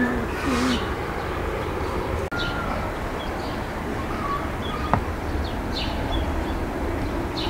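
Small birds chirping now and then over a steady low background rumble.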